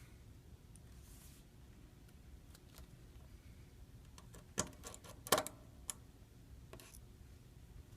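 Small hand tools clicking and tapping against an iPhone's metal parts during repair: a short cluster of sharp clicks about halfway through, with a few faint ticks around it.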